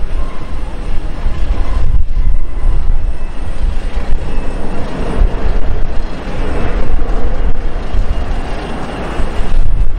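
Boeing 737 jet airliner's engines on the landing rollout, just after touchdown: a steady rush of engine noise over a strong low rumble that swells in the middle and eases near the end.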